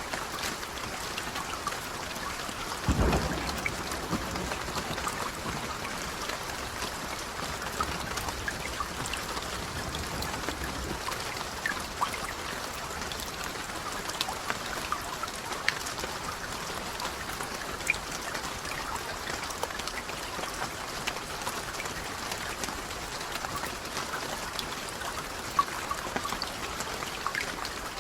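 Steady rain falling, with many individual raindrops ticking on a surface. About three seconds in there is a brief low thump.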